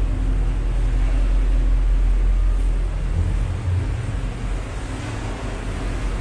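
Tour boat's engine running at low speed, a steady low rumble with a hiss of noise above it.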